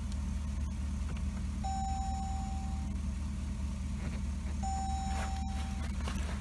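A 2018 Jeep Grand Cherokee Trackhawk's instrument-cluster warning chime sounds twice, two long steady tones of the same pitch a few seconds apart, as the start button is pressed and the car reports the key fob not detected because the fob isn't programmed. A low steady drone runs underneath.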